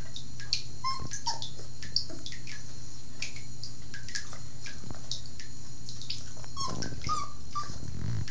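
Border Collie puppy giving a few short, high whimpers, about a second in and again near the end, while standing in bath water. Under it a tap trickles steadily into the tub with small drips and splashes.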